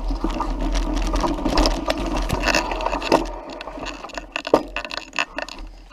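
Mountain bike rolling over a dirt forest trail: a steady low rumble of tyres and air with the bike's rattles and clicks. In the second half the rumble fades as the pace drops, leaving scattered clicks and knocks.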